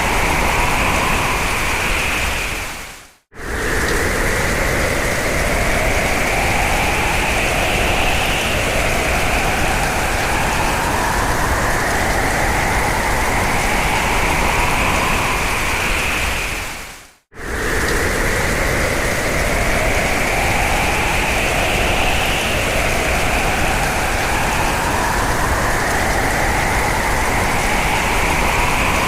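Strong hurricane wind: a loud, steady rush with howling, whistling tones that rise slowly in pitch. It briefly fades out and restarts twice, about 3 seconds in and about 17 seconds in, as the recording loops.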